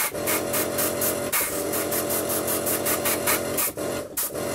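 Badger 200 airbrush spraying paint: a hiss of air over a steady hum, pulsing about five times a second, cutting out briefly twice near the end.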